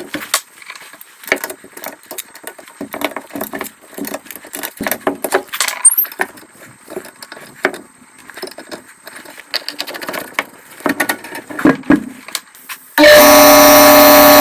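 Metal tools and parts clinking, knocking and rattling during hands-on work on an air compressor. Near the end, a loud steady pitched hum starts abruptly and runs for under two seconds.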